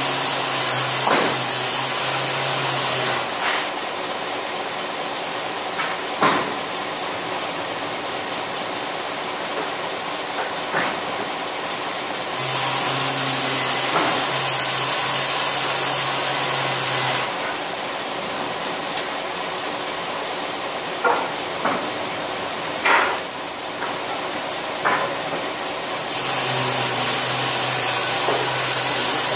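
Electric-motor-driven wood-processing machine running steadily. About every 13 seconds a louder, hissing grind lasts four to five seconds as a piece of wood is fed in and cut. A few sharp knocks fall in between.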